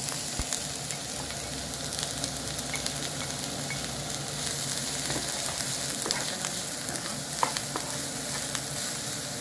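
Chopped onion sizzling in hot olive oil in a non-stick frying pan, with a wooden spoon stirring it and knocking lightly on the pan a few times.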